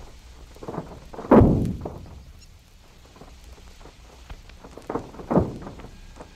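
Seismometer recording of aftershocks of the 1952 California earthquake, played back speeded up so the ground motion can be heard: a series of deep thuds, the loudest about a second in, trailing off into a rumble.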